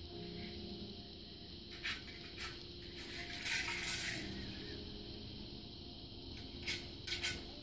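Kibble rattling and clicking inside a Buster Cube, a hard plastic food-dispensing puzzle cube, as a puppy noses and rolls it: scattered clicks, a busy cluster about three to four seconds in and a few sharp ones near the end.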